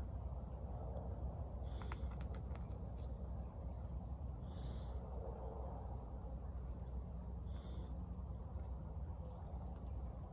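Steady high drone of crickets over a low rumble, with three short high chirps a few seconds apart and a few faint clicks about two seconds in.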